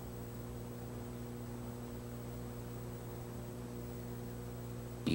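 Steady low electrical mains hum with its overtones and a faint hiss underneath, unchanging throughout.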